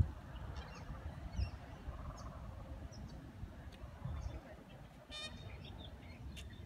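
A large waterfowl gives one short honking call about five seconds in, with small birds chirping faintly and a low rumble underneath.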